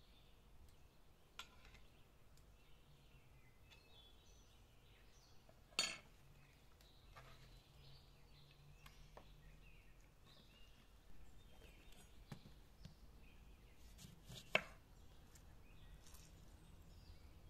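Near-quiet with faint birds chirping, broken by a few light clicks and two sharper clinks of a metal spoon and dishes, about six and fourteen seconds in, while saffron oil is spooned over raw quails on a metal tray.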